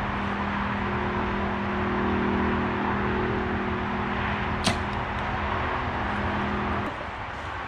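A compound bow is shot: one sharp snap of the string about halfway through. Underneath runs steady background noise with a low steady hum that stops near the end.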